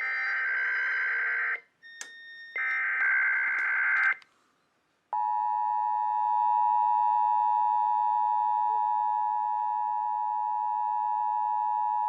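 Emergency Alert System data bursts from an Endec relaying an IPAWS Required Weekly Test: the last two of the header's three bursts, each about a second and a half. About five seconds in, the steady two-tone EAS attention signal starts and holds unbroken.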